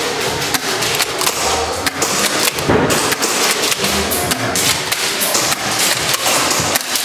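A dense, irregular run of sharp clicks and knocks.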